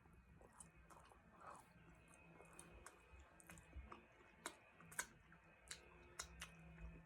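Faint close-up chewing and wet mouth clicks of someone eating, with a few sharper clicks scattered through.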